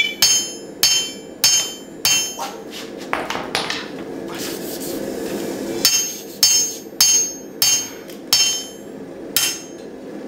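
Hand hammer striking a red-hot steel sword blade on an anvil: ringing blows about every half second, a lull of a few seconds in the middle, then the blows resume. This is hot hammering to thin the blade's edges into bevels.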